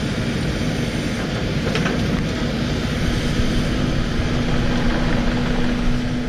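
Takeuchi TB1140 excavator's diesel engine and hydraulics running steadily as it works gravel, with a steady hum and a faint clink about two seconds in.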